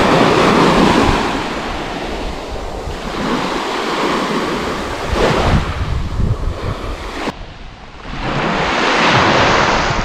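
Waves of the Sea of Azov washing onto the beach in swells, one loud near the start and another about nine seconds in, with wind buffeting the microphone.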